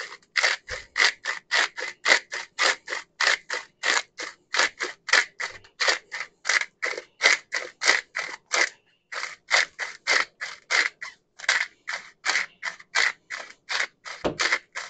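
Pepper mill grinding fresh black pepper by hand: a steady run of short grinding strokes, about three or four a second, with a brief break about nine seconds in.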